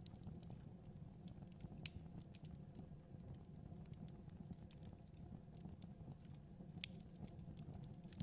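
Fire burning in a fireplace: a faint steady low rumble with scattered small crackles, and two sharper pops about two seconds in and a second before the end.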